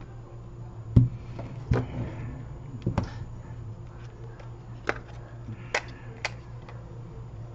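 Irregular clicks and knocks of small tools and phone parts being handled and set down on a repair bench, the sharpest about a second in, over a steady low hum.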